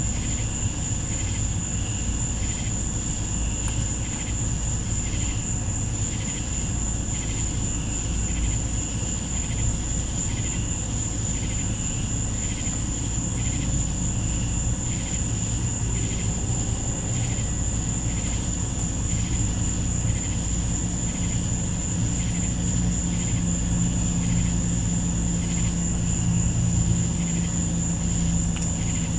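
Night insects: a steady high-pitched trill with rhythmic chirping at about two a second, over a low steady drone that grows a little louder about halfway through.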